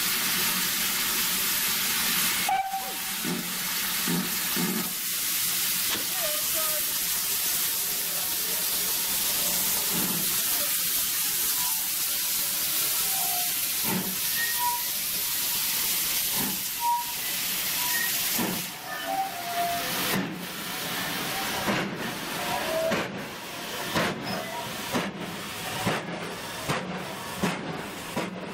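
A Great Western steam locomotive hissing loudly and steadily with steam, the hiss stopping about two-thirds of the way through. It then sets off, its exhaust beats starting slow, about one a second, and quickening as it pulls away.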